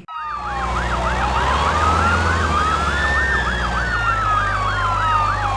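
Emergency vehicle siren: a fast yelp sweeping up and down about three to four times a second, layered over a slower wail that rises and then falls once, with a steady low rumble underneath.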